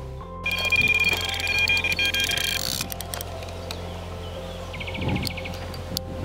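Electronic carp bite alarm sounding a steady high beep-tone for about two seconds: a fish has taken the bait and is running with the line. A quick series of clicks follows near the end, along with a few dull thumps.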